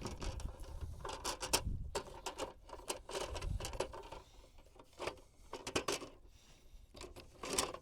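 Irregular clicks, taps and rustling of things being handled, over a low rumble.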